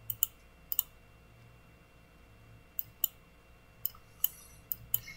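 Computer mouse clicks: about ten sharp, short clicks, several of them in quick pairs, over a faint steady electrical hum.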